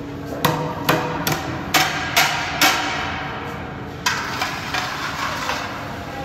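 Scoop and spatula knocking and scraping against a steel tray and a large steel karahi as cooked halwa is scooped across. There is a quick run of about six sharp clanks in the first three seconds, then a louder knock about four seconds in, followed by a few lighter taps.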